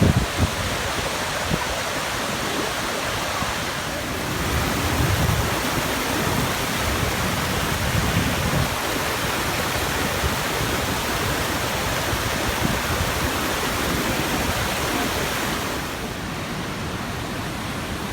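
Tosno River waterfall rushing steadily, a loud even roar of falling water, with wind gusting on the microphone now and then. The rush drops a little in level near the end.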